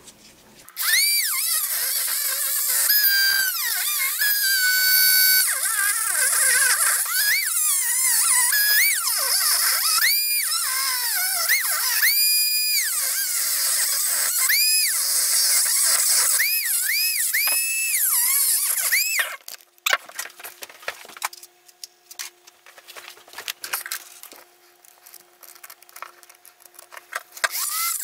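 High-speed rotary tool with a cut-off wheel cutting through a PVC pipe reducer: a loud high whine whose pitch sags and recovers again and again as the wheel bites into the plastic and is eased off. About two-thirds of the way in the whine stops, leaving quieter scraping clicks, and the tool starts again near the end.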